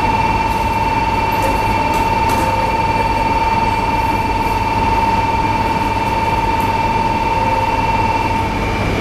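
Station departure bell ringing steadily, cutting off about eight and a half seconds in, over the steady low hum of a 200 series Shinkansen standing at the platform.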